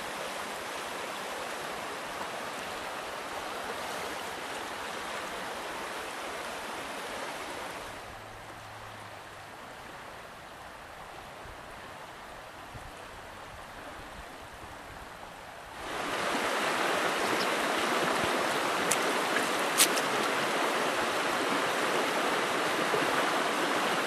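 Shallow rocky creek running over stones, a steady rush of water. It drops quieter for several seconds in the middle, then comes back louder, with a few sharp clicks in the last few seconds.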